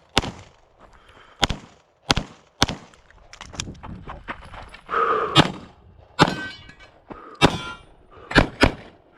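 9mm Glock 45 pistol fired in a quick, uneven string of about nine shots, with a pair close together near the end, as in a USPSA stage run. A metallic clang sounds shortly before one of the shots midway.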